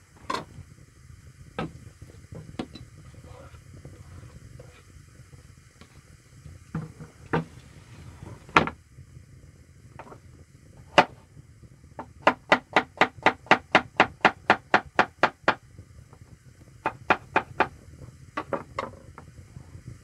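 Kitchen knife chopping vegetables on a wooden cutting board: scattered single cuts, then a quick even run of about fifteen chops at roughly four to five a second past the middle, and a few more near the end.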